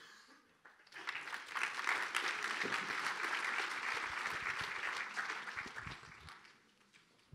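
Audience applauding. The clapping starts about a second in, holds steady, and fades away near the end.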